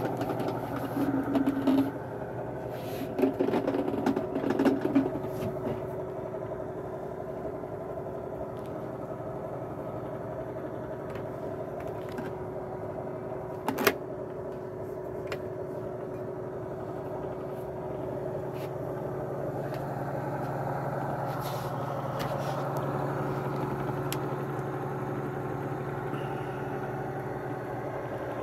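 Bedini pulse motor and generator rig running with a steady hum, with some handling clatter in the first few seconds and one sharp click about 14 seconds in.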